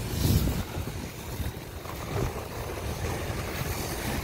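Steady low rumble and hiss of wind buffeting the microphone outdoors, with road traffic beyond, a little stronger in the first half second.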